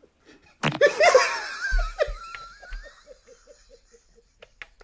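Men laughing hard, breaking out suddenly and trailing off into fainter short chuckles.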